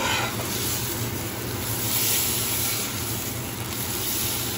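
Hot dogs sizzling in a nonstick frying pan: a steady hiss that swells briefly about two seconds in, over a steady low hum.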